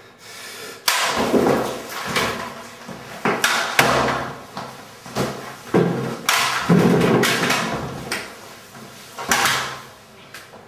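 Loud, irregular banging: about ten heavy knocks over some nine seconds, each ringing on briefly.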